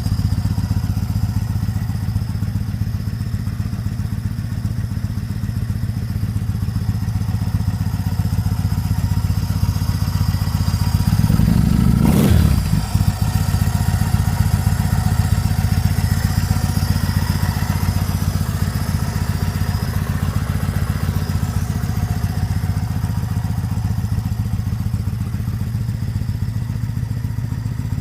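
Motorcycle engine running steadily, with a brief swell in level about halfway through, a short dip straight after, and then the same steady running again.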